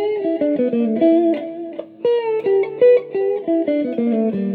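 Electric guitar, a 1970s Japanese-made Cortley copy of a Fender Stratocaster, played on its middle pickup: a run of picked single notes and double-stops, a short break about two seconds in, then more notes ending on a held low note.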